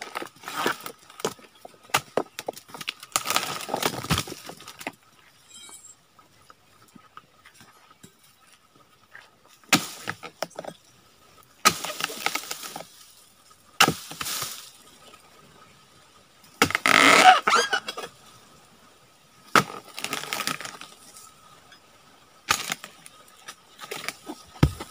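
Dodos chisel on a pole chopping into oil palm frond bases and a fruit bunch stalk: a series of sharp, cracking strikes and short splintering bursts at irregular intervals. The loudest and longest is about seventeen seconds in.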